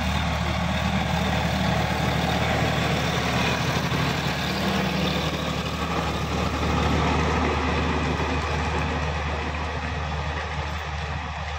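Sonalika DI-50 RX tractor's diesel engine running steadily under load while its rear-mounted rotary tiller churns the soil. The sound eases off near the end as the tractor moves away.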